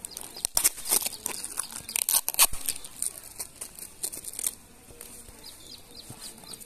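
Parcel packaging being torn open by hand: packing tape and brown wrapping paper ripping and crinkling in a run of sharp crackles over the first four and a half seconds, then quieter.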